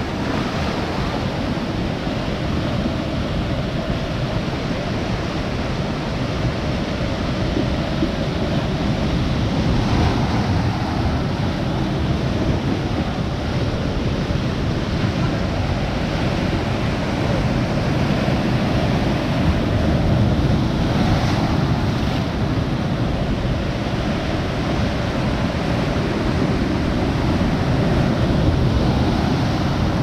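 Sea waves surging in and breaking over shoreline rocks, a steady wash of surf.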